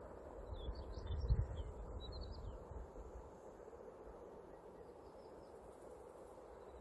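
Quiet rural trackside ambience: a few small birds chirp in the first half, over a faint steady hiss. A low rumble swells and fades about a second in.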